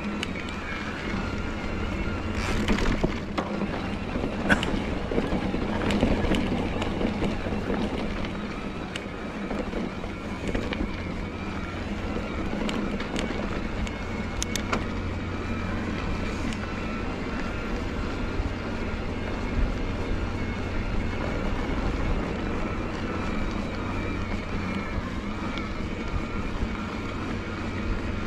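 Bosch Performance Line CX mid-drive motor of an electric mountain bike whining steadily under load on a trail climb. A few sharp clicks and knocks come through, around the start and again in the middle.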